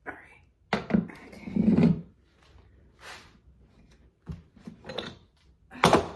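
Office chair parts knocking and clunking as the seat's tilt mechanism is worked onto the gas-lift cylinder and pressed down: a cluster of knocks with a dull thud about a second or two in, then a few lighter clicks near the end.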